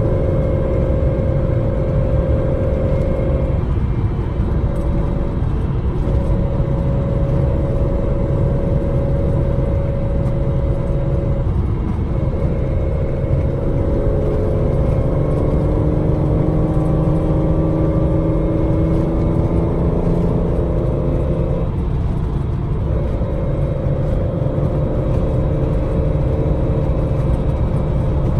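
Datsun 260Z's straight-six engine on triple Mikuni carburettors, running steadily while driving. Its note breaks off briefly about four times, and through the middle it climbs slowly as the car pulls.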